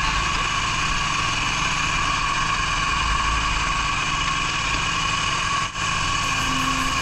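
Small petrol-engine hookah dive compressor running steadily, a constant engine drone with a steady whine over it, pumping air down the hose for compressor diving. The sound dips for a moment near the end.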